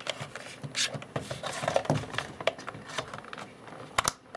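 Plastic clicks and scraping from handling a toy RC tank while its battery compartment cover is fitted and closed, with a sharp click about four seconds in.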